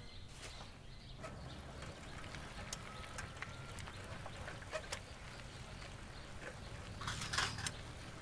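Faint rural outdoor ambience with scattered short bird chirps and clicks over a low steady background, and a short, louder noisy burst about seven seconds in.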